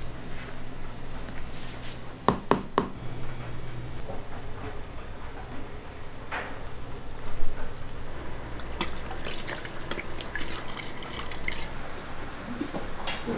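Kitchen food-prep sounds: liquid being handled, with three quick sharp clinks a little over two seconds in and scattered small clicks later, over a steady low hum.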